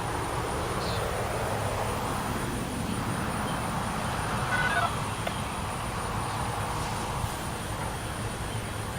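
Whelen WPS-4004 electronic outdoor warning siren sounding during its test, its tone swelling and fading as the rotating speaker array turns, over a steady low rumble of road traffic.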